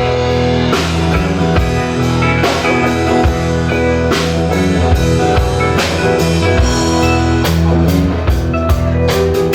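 A live rock band playing an instrumental passage of guitar, bass and drum kit, with a steady beat.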